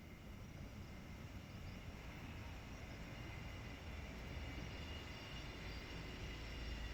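Low background rumble, like distant traffic, growing gradually louder, with faint steady high tones above it.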